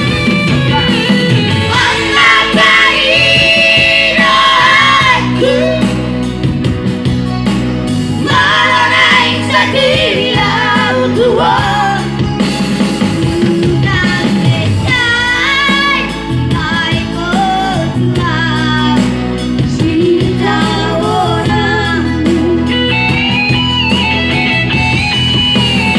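A singer singing a song over amplified instrumental backing that includes guitar, the long sung notes wavering in pitch.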